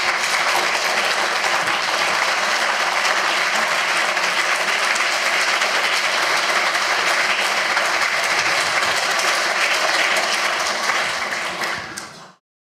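Audience applauding steadily. The applause thins near the end, then cuts off suddenly.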